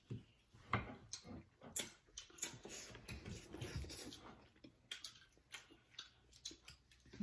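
Eating sounds at close range: chewing and wet mouth clicks and smacks, with chopsticks on food, as short irregular clicks.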